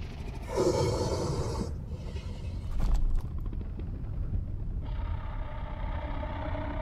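Deep, steady rumbling growl of the dragon Vermithor, with a breathy snort about half a second in and a short louder burst near three seconds. A low, held tone comes in near the end.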